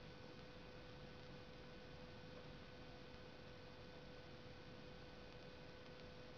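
Near silence: a faint steady hiss with a constant hum.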